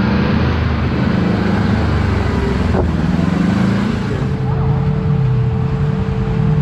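Kawasaki Teryx KRX4 1000 side-by-side's parallel-twin engine running as it drives along a trail, its pitch shifting up and down with the throttle. A steady higher whine joins about four seconds in.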